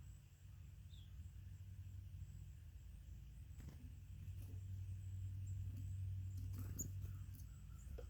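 Small birds at a seed feeder: light clicks and scratchy ticks of feet and bills on the feeder, with a few faint, short high call notes, over a steady low hum.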